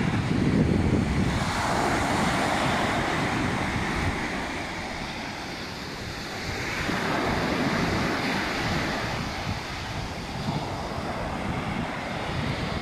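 Sea surf washing onto a sandy beach, rising in two slow surges, one about a second and a half in and one about halfway through, with wind rumbling on the microphone.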